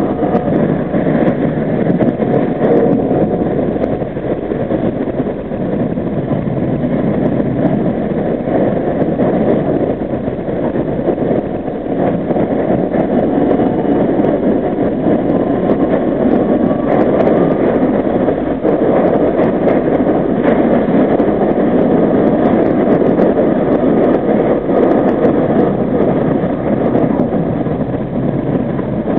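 R32 subway car running through a tunnel, heard from inside at the front: a loud, steady rumble of steel wheels on the rails and the running gear, with a faint rising whine partway through.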